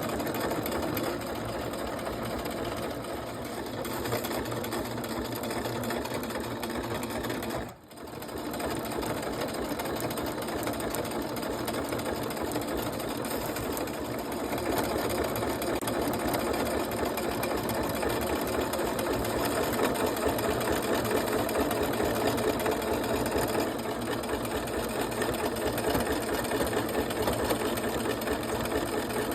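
Electric sewing machine stitching a seam through plastic oilcloth sheeting, running steadily. It stops briefly about eight seconds in, then runs on.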